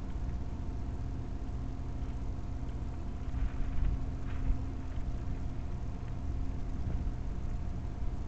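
Steady low engine hum and rumble of idling machinery, with a few faint knocks about three and a half to four and a half seconds in.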